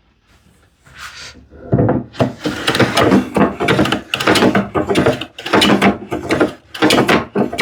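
Freshly sharpened hand plane taking quick, short strokes along the edge of a solid cherry board, about two strokes a second, starting a second and a half in, working down the high spots of an edge left uneven by a freehand bandsaw cut.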